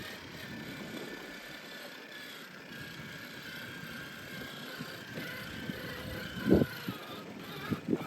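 Axial SCX6 RC crawler's electric motor and geared drivetrain whining as it drives, the pitch drifting with the throttle. A short thump about six and a half seconds in.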